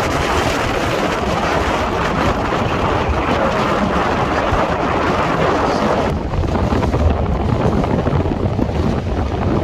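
Strong wind buffeting the microphone on a moving boat, a loud, continuous rumbling rush that thins out a little about six seconds in.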